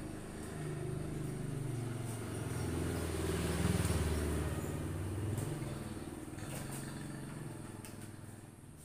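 A motor vehicle passing by, its engine rumble swelling to a peak about four seconds in and then fading away. A few faint clicks and knocks come near the end.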